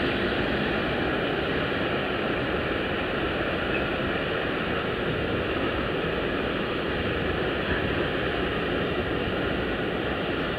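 Freight train of tank wagons rolling along the line: a steady rolling rumble and rush of wheels on rails that holds even throughout.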